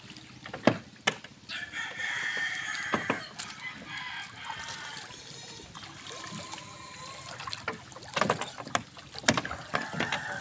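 Wet fishing net being hauled over the gunwale of a wooden outrigger boat, with sudden splashes and knocks as water streams off it, the loudest near the start and again about eight to nine and a half seconds in. A drawn-out call, several seconds long, sounds in the background from about a second and a half in.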